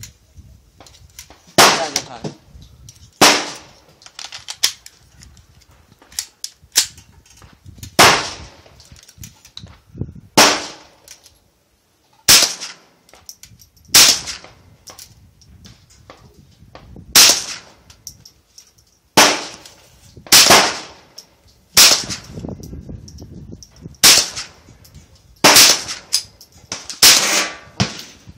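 AR-15-style rifle fired semi-automatically: loud single shots, one every one to two seconds, each with a short ringing tail, with fainter shots in between.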